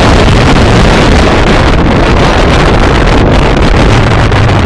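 Loud wind buffeting a phone's microphone from a moving car, with the car's low road rumble underneath.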